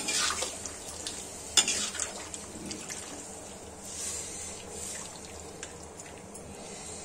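Steel spatula stirring taro pieces through water in a steel kadhai: liquid sloshing, with sharp clinks of the spatula against the pan at the start and about one and a half seconds in, over a steady light hiss.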